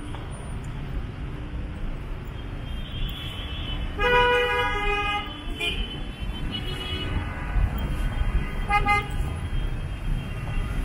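Vehicle horns honking over a steady rumble of street traffic. A loud honk comes about four seconds in and lasts over a second, followed by shorter, fainter honks, one of them near the end.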